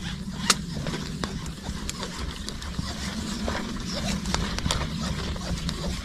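Fishing line being wound by hand onto a hand-held spool: scattered light clicks and rubbing over a steady low rumble.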